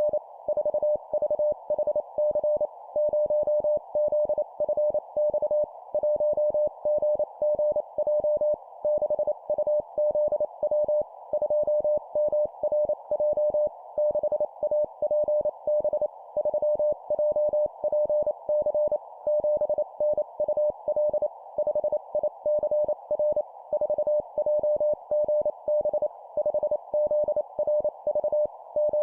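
Morse code (CW) sent at 25 words per minute as a keyed tone of about 600 Hz, in four-character groups of a number followed by three letters, over a steady band of hiss that stays between the tones.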